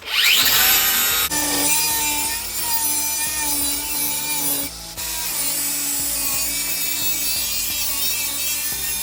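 A power cutting tool spins up with a rising whine and then cuts through the car's sheet-steel panel with a steady, gritty noise whose pitch wavers under load. It stops briefly about halfway through and then carries on cutting.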